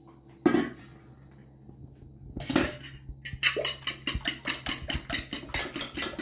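Eggs being beaten by hand in a metal bowl: a quick, regular clatter of the utensil against the bowl, about four strokes a second, starting a little after halfway. Before it come two sharp knocks, the first the loudest sound.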